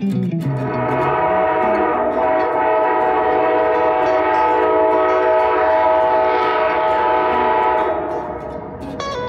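Locomotive air horn of an approaching train sounding one long, steady chord for about seven seconds, then fading.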